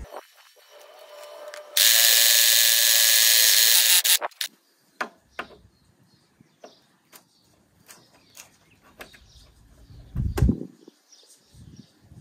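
A reel mower's cutting cylinder is spun backwards by a motor against the bottom blade, which is coated with coarse valve-grinding paste. This backlapping is done to sharpen blunt blades. It gives a loud, steady grinding whir for about two seconds, then stops, followed by scattered light clicks and a low knock near the end.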